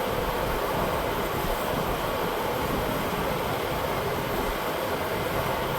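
Electric shop fan running steadily: a constant rushing noise with no breaks.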